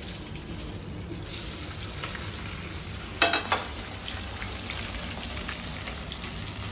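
Hot oil with cumin, fennel and curry leaves sizzling steadily in a steel kadhai. About three seconds in there is a sharp metallic clatter as sliced onions go in, and the sizzle carries on as they fry.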